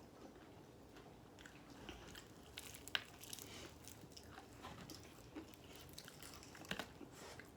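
Faint chewing and biting of Popeyes fried chicken: scattered crisp crunches and mouth clicks, the sharpest about three seconds in and a few more close together near the end.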